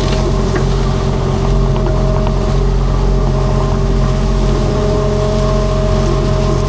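Skid steer engine running steadily at a constant speed.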